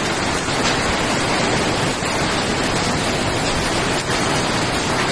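Heavy rain pouring down in a downpour, a loud, steady hiss.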